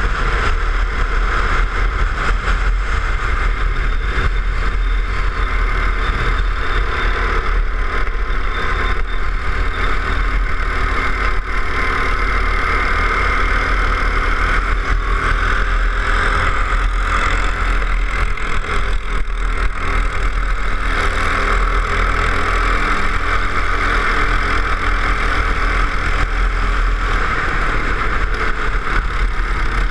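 Go-kart engine running at speed, heard from on board the kart, its note rising and falling a little with speed. Steady rumble of wind on the microphone underneath.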